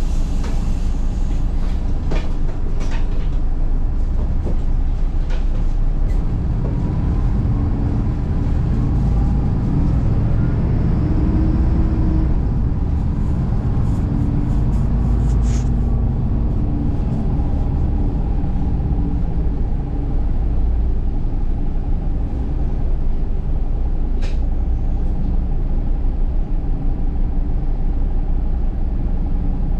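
City bus running along the road, heard inside the cabin from the back seat: a steady low engine and road rumble. The engine note rises about a third of the way in, then eases off. A few sharp clicks and rattles are scattered through it.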